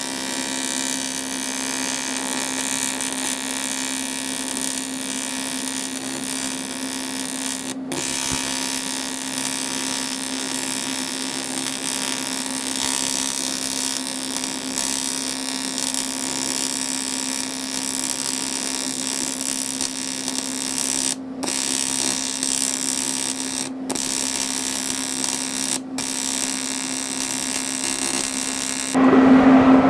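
AC TIG welding arc on cast aluminium from an Artec 260 AC/DC inverter TIG welder: a steady high buzz with hiss. It breaks off briefly four times and stops near the end.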